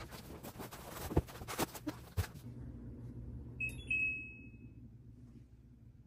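A few knocks and rustling from handling things, then about three and a half seconds in a wall-mounted air conditioner beeps once as it is switched off: a short chirp into a ringing tone that fades over about a second.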